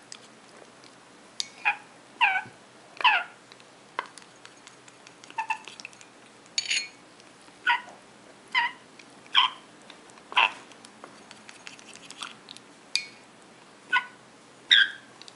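African grey parrot chick giving short, high begging calls during hand-feeding, about a dozen of them spaced roughly a second apart, some falling in pitch, with faint clicks in between.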